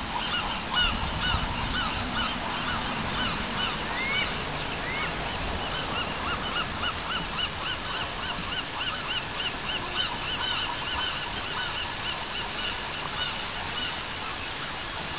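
A flock of waterbirds calling continuously, many short honking calls repeating a few times a second and overlapping, over a steady background rush. Two higher rising calls stand out about four and five seconds in.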